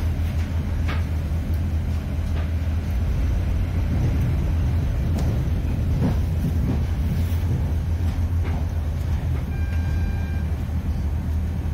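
Cabin running noise of a Class 142 Pacer railbus on the move: a steady low rumble with occasional light clicks. A brief faint high-pitched tone comes in about ten seconds in.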